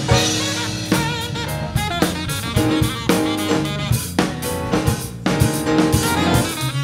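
Live funk band playing a steady groove on drum kit, electric bass and electric keyboard, with snare and bass drum hits driving the rhythm.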